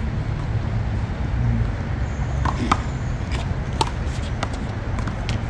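Steady low city traffic rumble, with several short sharp taps and scuffs from the players on the court in the second half.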